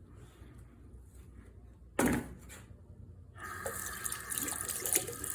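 A sharp knock about two seconds in, then, about a second later, water starts running steadily from a tap into a sink.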